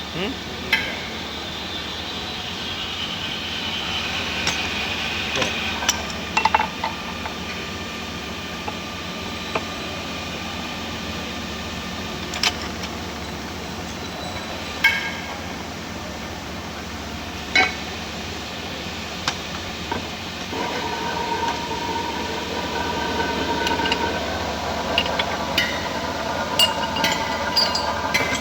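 Machine tool running while cutting a metal differential plate: a steady hum, with a higher cutting tone joining about two-thirds of the way in. Scattered sharp metallic clinks sound throughout and crowd together near the end.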